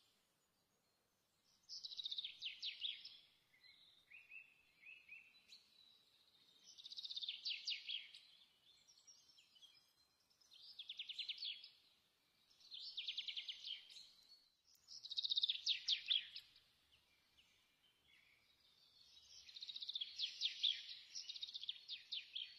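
A songbird singing: short phrases of fast trilled notes, repeated every two to four seconds.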